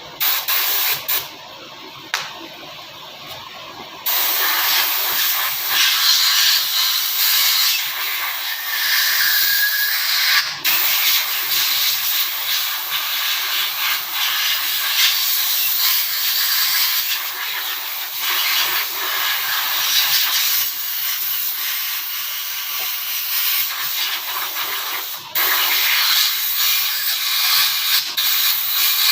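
Loud, steady hiss of something being sprayed. It comes in short spurts at first, then runs almost continuously, cutting out briefly a few times.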